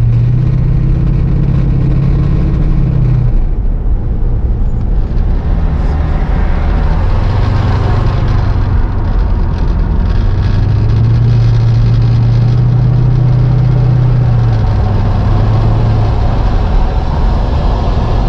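1991 Chevrolet Corvette C4's 5.7-litre V8 running while the car is driven, over steady road and wind noise. The engine note falls away about three seconds in, picks up again from about seven seconds and eases off near the end.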